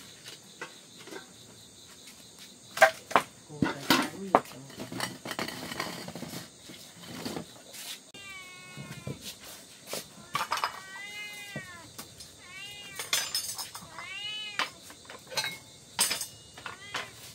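A cat meowing repeatedly in short calls, each rising then falling in pitch, through the second half. Before that, a few sharp knocks, the loudest near the start.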